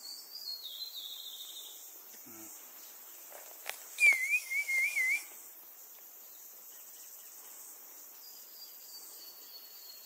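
Forest birdsong over a steady high-pitched insect drone. A loud, wavering whistled bird call comes about four seconds in and lasts about a second, and thinner high whistles sound near the start and near the end.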